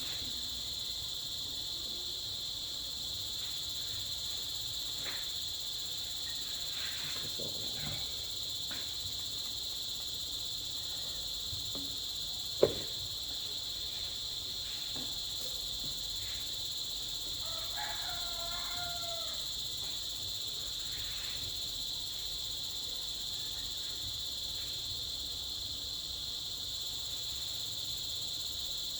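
Steady high chirring of insects such as crickets throughout. A single sharp click comes about twelve seconds in, and a faint brief call is heard around two-thirds of the way through.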